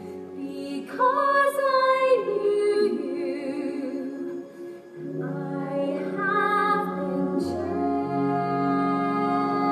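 Musical-theatre orchestra playing slow, sustained chords that change in steps, with singing gliding over them about a second in.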